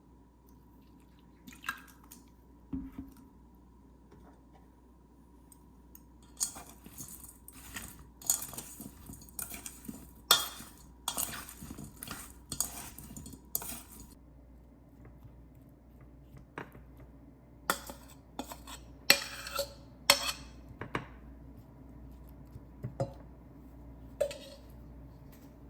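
Dishes and cutlery clinking and clattering in irregular bursts as kitchenware is handled, busiest in the middle and again a little later.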